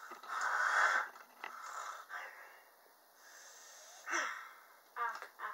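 Breathy, wheezy huffs of air from a child wearing a Speak Out cheek-retractor mouthpiece, air hissing past the held-open lips; the loudest huff comes first, and two short voiced sounds follow near the end.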